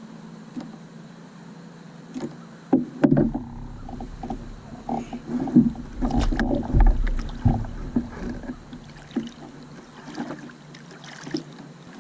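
Irregular knocks, thumps and rubbing in a kayak as a freshly caught brown trout is handled and bled, starting a few seconds in, with several sharp knocks among them.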